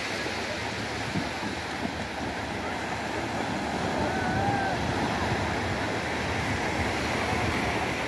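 Small waves breaking and washing up on a sandy beach in a steady hiss of surf, growing a little louder about halfway through. Faint distant voices of children playing in the water come through now and then.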